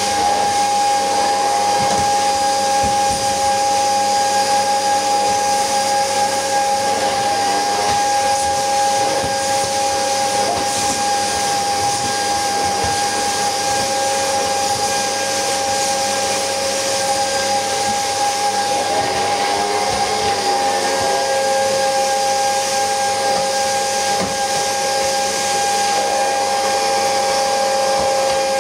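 Old red canister vacuum cleaner running steadily, its motor giving a constant whine over rushing air, as the floor brush is worked across the floor.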